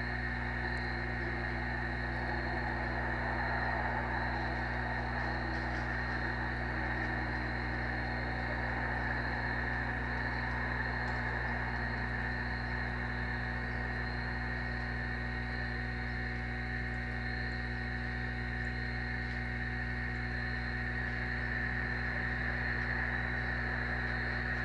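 Steady outdoor ambience: a constant low hum with insects trilling continuously, unchanging throughout.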